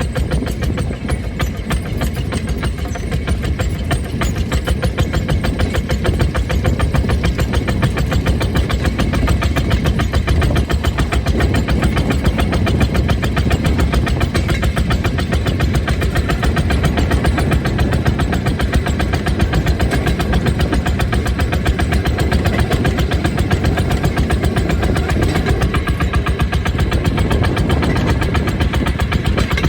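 Rail speeder's small engine running steadily as the speeder travels along the track, with a rapid, even chugging pulse.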